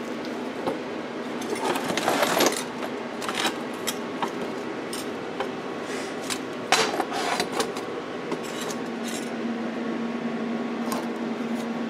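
Scattered metallic clinks and knocks as a steel oil pan and tools are handled on a workbench, with a louder clatter twice, over a steady background hum.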